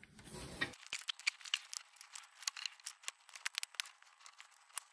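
Light, irregular metallic clicks and ticks of a tool working the legs of a split pin straight in a cramped linkage, starting about a second in.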